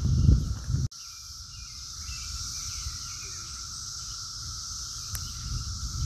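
Chorus of 13-year periodical cicadas: a steady, unbroken drone. A loud low rumble on the microphone fills about the first second, then cuts off abruptly.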